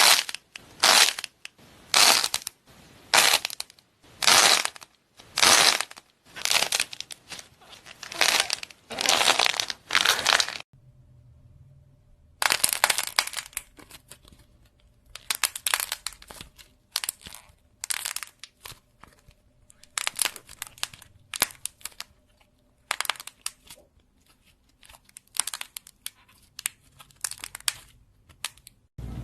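Crunchy crackling as a cracking slime or clay is squeezed, in short bursts about once a second. About ten seconds in, the clip changes to quieter, more irregular crackles over a faint hum.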